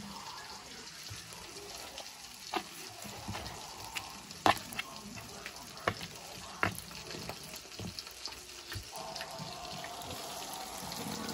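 Chicken frying in a skillet of hot oil that is foaming with egg from the batter: a steady sizzle with a few sharp clicks and pops. The sizzle grows fuller and a little louder near the end as a coated piece goes into the oil.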